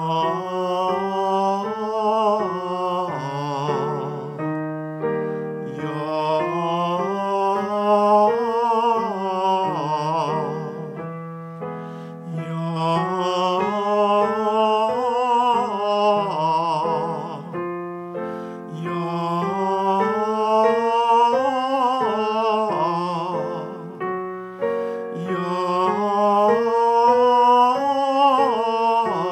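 A man singing a vocal warm-up exercise on an open vowel with vibrato, over his own electric keyboard accompaniment. He sings five phrases of about six seconds each, each one pitched a little higher than the one before.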